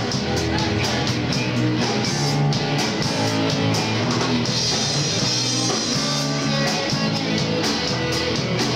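Live rock band playing instrumentally: electric guitars over a drum kit with a steady beat and cymbal hits, no vocals.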